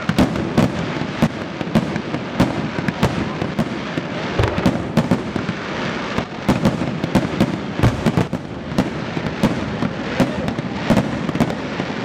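Fireworks bursting in quick succession: several sharp bangs a second over a continuous crackle and rumble.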